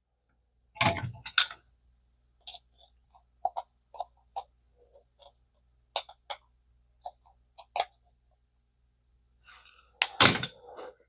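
Small metal parts of an early-1960s Zebco spincast reel clicking and knocking as its rear cover is fitted back on: two knocks about a second in, scattered light clicks and taps, and a louder knock near the end.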